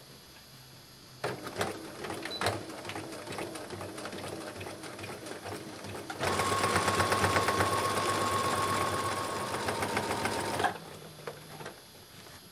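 Domestic sewing machine stitching a hem through folded fabric. It starts about a second in, runs steadily, speeds up and gets louder about halfway through, then stops suddenly near the end.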